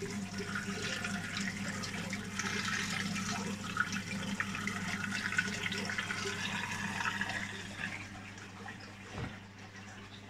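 Water bubbling and splashing at the surface of a catfish fry tank, over a steady low electrical hum; the splashing weakens about eight seconds in.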